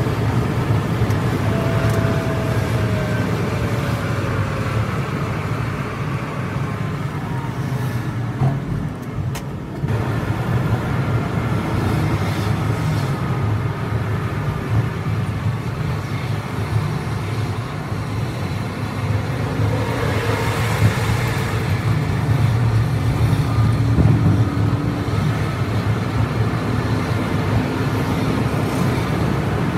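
Bus diesel engine and tyre and road noise at highway speed, heard from inside the cab as a steady low drone. The engine note falls early on and climbs again later as the bus speeds up to overtake, and the sound dips briefly about nine seconds in.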